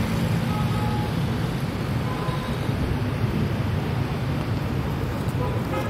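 Steady rumble of dense motorbike and car traffic on a city road, with a few short, faint horn toots now and then.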